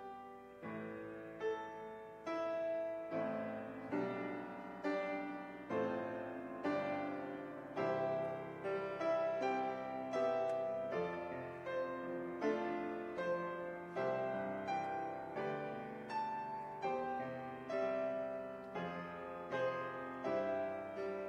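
Grand piano played solo: a slow, steady succession of chords struck about once a second, each left to ring and fade.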